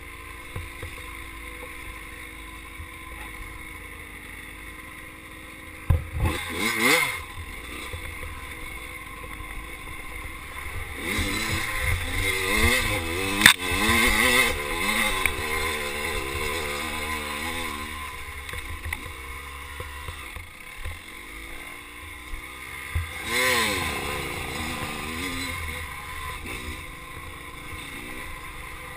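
Dirt bike engine running at low revs on a trail ride, with blips of throttle that rise and fall in pitch about six seconds in, through the middle and again near the end. A single sharp knock sounds about midway.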